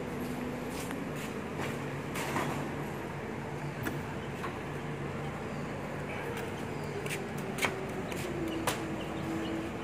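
Volvo FE 300 recycling truck's diesel engine running steadily at standstill, with a few sharp knocks, and a humming tone that steps down in pitch near the end.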